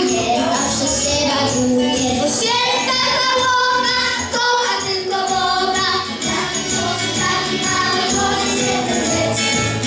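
Children's choir singing a song together in unison, over instrumental accompaniment.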